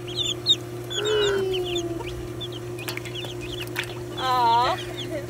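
Baby chicks and ducklings peeping in many quick, short, high chirps. A longer chicken call comes about a second in and a louder drawn-out one near the end, over a steady low hum.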